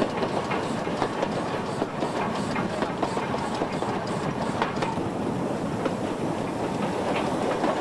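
An 8620-class steam locomotive and its train running past at speed: a steady rumble of wheels and running gear with light, regular clacks over the rails.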